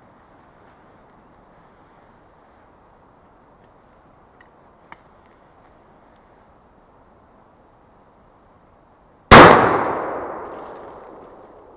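A series of high, thin, drawn-out whistles of the kind used to call hazel grouse, five in all. Then, about nine seconds in, a single loud gunshot that rings and fades away over a couple of seconds.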